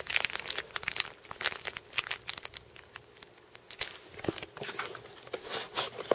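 Plastic packaging crinkling and rustling in quick, irregular crackles as it is handled and pulled open.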